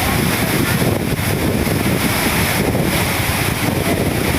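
Steady rushing noise of water falling at a waterfall, with wind buffeting the microphone.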